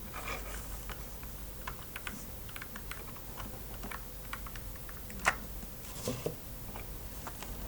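Small plastic clicks and taps from handling the parts of a disassembled computer mouse, with a sharper, louder click about five seconds in and two more about a second later.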